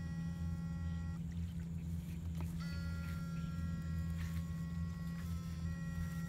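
Backpack electrofishing rig buzzing: a steady low electrical hum under several thin, steady whining tones. The tones drop out, shift in pitch and come back a few times.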